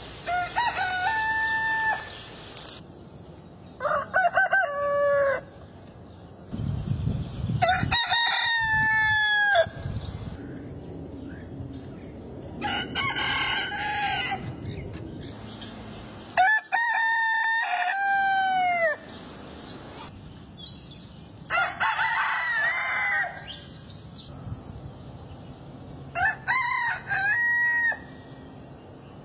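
Roosters crowing: seven cock-a-doodle-doo crows a few seconds apart, each about two seconds long.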